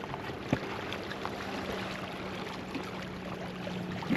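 Sea water washing and sloshing against shore rocks, with a few light knocks and a steady low hum starting about half a second in.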